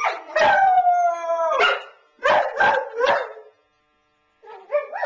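Dogs left home alone howling: a long howl sliding down in pitch, then a few short yelping howls. The howling breaks off about three and a half seconds in and starts again, rising, near the end.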